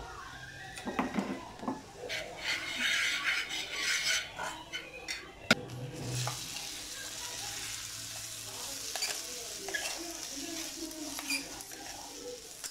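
Hot oil with mustard seeds and chilli powder sizzling in a small frying pan, with clinks of a steel bowl and spoon against the pan and one sharp clink about five and a half seconds in. About six seconds in, ground gooseberry is tipped into the hot oil and an even sizzle sets in.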